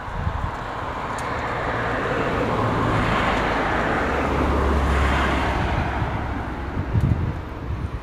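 A car passing by: road noise swells to a peak about halfway through and then fades away, with a low engine hum near the peak.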